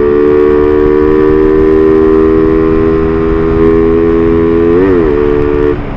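Suzuki Raider 150 FI single-cylinder four-stroke engine held at high, steady revs at speed, near what the rider calls the bike's top speed, with wind rush. The pitch wobbles briefly near the end, then the engine note drops away as the throttle eases.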